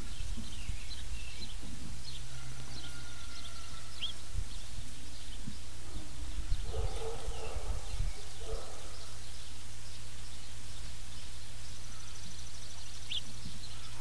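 Outdoor ambience: a steady low hum with scattered high bird chirps, two sharp rising chirps standing out. About seven seconds in comes a short pitched animal call in two parts.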